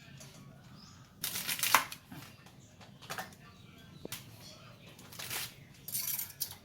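Several short bursts of rustling and scraping noise, the loudest about a second in, with a sharp click near the middle.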